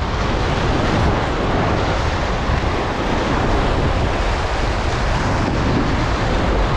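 Steady noise of waves breaking and wind buffeting the microphone.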